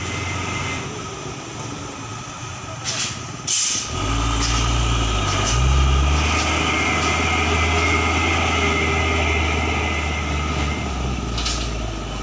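Heavy diesel dump truck engine pulling up a steep grade under load: its low rumble swells about four seconds in, rises briefly in engine speed, then holds steady. Just before it, a short sharp hiss.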